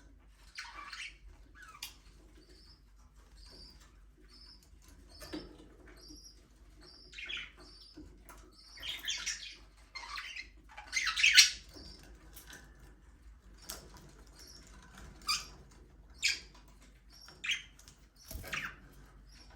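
Budgerigars chirping and chattering: a run of short, evenly spaced high chirps, then louder harsh warbling calls, the loudest about eleven seconds in, and a few sharp single chirps toward the end.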